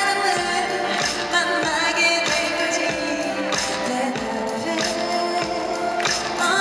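Female pop vocalist singing live into a handheld microphone over musical accompaniment with a steady beat.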